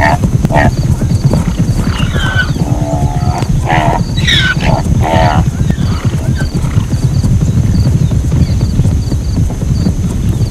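Zebras calling: many short, pitched, horse-like calls follow one another, some gliding in pitch, over a steady low rumble.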